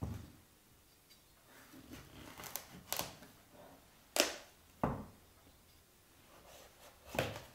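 A large kitchen knife forced through a raw butternut squash on a wooden chopping board: a low knock, then several sharp cracks and knocks as the blade splits the tough flesh and hits the board, the loudest about four seconds in.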